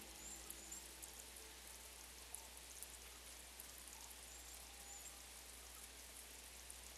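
Faint light rain, with scattered drops ticking, over a low steady hum.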